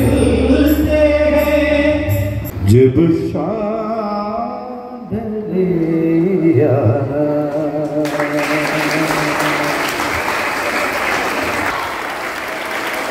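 A man sings a melody through a microphone and PA, with long held and bending notes. The song ends about eight seconds in, and a large student audience breaks into applause.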